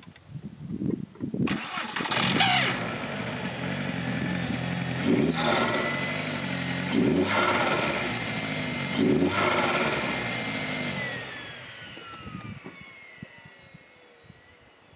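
Volkswagen Jetta's 1.8-litre turbocharged four-cylinder engine comes in suddenly about a second and a half in and is revved up about four times. Its pitch then falls and it fades away near the end. It runs rough with a bad sound, which the owner puts down to a failed turbo diverter valve.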